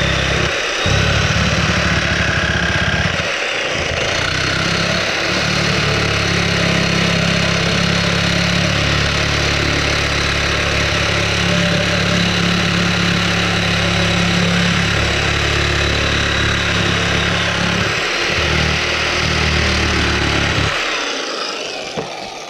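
Corded reciprocating saw running and cutting through old nails and screws in a wooden deck joist. It eases off briefly a few times and stops near the end.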